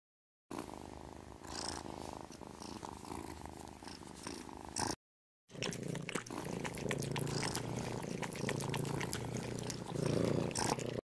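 Cat purring, in two stretches split by a short break about halfway through.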